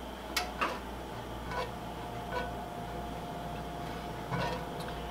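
Silicone spatula stirring garlic in olive oil in a cast iron skillet, with about six light, scattered taps and scrapes against the pan over a steady low background hum.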